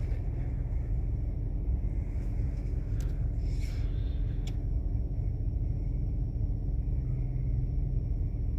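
Steady low rumble of a car idling at a traffic light, heard from inside the cabin, with a brief hiss and a click about four seconds in.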